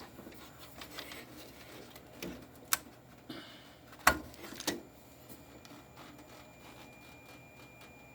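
Handling noises from working on a vacuum-tube TV chassis: a few sharp clicks and knocks with some light rubbing, the loudest click about four seconds in.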